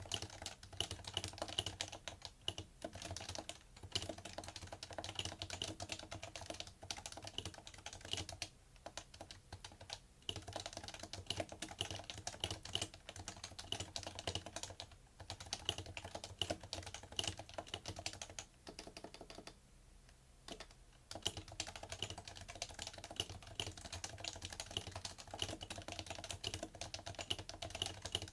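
Fast continuous typing on a PFU Happy Hacking Keyboard Professional2 with Topre capacitive key switches, a rapid, steady stream of keystrokes with a short pause about two-thirds of the way through.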